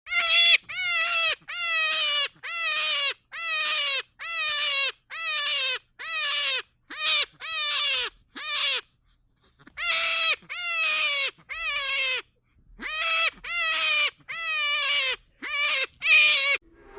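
An animal calling over and over in short loud calls, each falling in pitch, about one and a half a second, with a brief pause about halfway.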